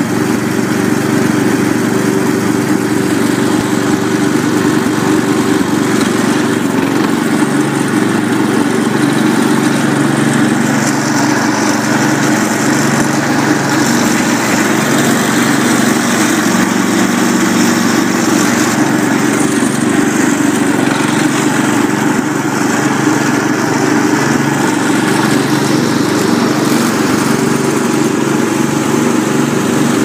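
Garden tractor engines running steadily at working speed close by. The nearest is the 1969 Cub Cadet 126 carrying the camera, with the Onan engine of a restored 1979 Sears GT 19.9 plowing snow just ahead.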